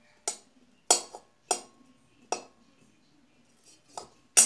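Flat steel spatula tapping and scraping against a metal kadai while a few whole spices are dry-roasted: about six sharp metallic clinks, each with a brief ring.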